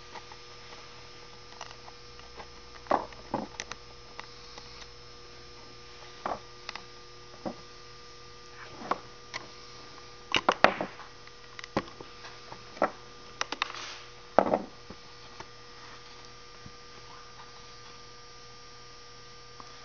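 Scattered small clicks and taps of a roller, screws and washers being handled and fitted into a boot's cable assembly by hand, over a steady electrical hum.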